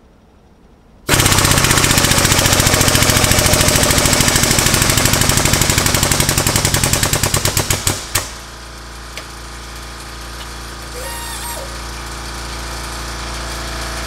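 Air-over-hydraulic bottle jack's pneumatic pump running under air pressure: a loud, rapid chatter of pulses that starts about a second in, turns choppier and cuts off about eight seconds in. A quieter steady machine hum is left after it.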